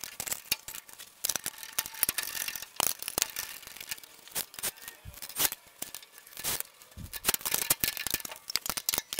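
Steel exhaust pipe and glass-pack muffler knocking against the chassis and engine as it is offered up and bolted on: a string of irregular sharp metal clinks and rattles.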